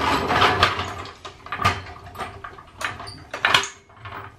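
Steel floor jack clanking and rolling on a concrete floor as it is worked by its long handle and pushed under the vehicle: a run of irregular metal knocks, busiest at first, with sharper clanks about a second and a half in and again near the end.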